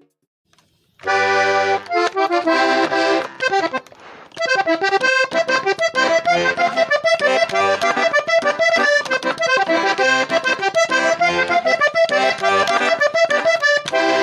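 Accordion played after about a second of quiet: a held chord, then, from about four seconds in, a fast melody over bass notes. This is the instrument being tried out after a broken key was repaired.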